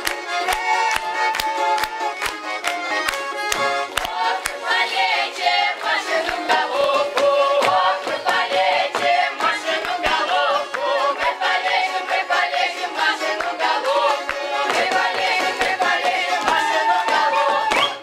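Russian folk ensemble of women's and men's voices singing a folk song together, with a button accordion playing along and a steady beat of stamping feet on a wooden stage, about three beats a second. The singing grows stronger about four seconds in, and the song stops right at the end.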